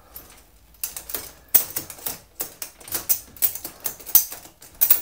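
Headrest of a poorly built folding massage table rattling in its metal mounting bars as it is rocked side to side: a quick, irregular run of sharp clicks and knocks starting about a second in. The rattle is the sign of a loose, unstable headrest fitting.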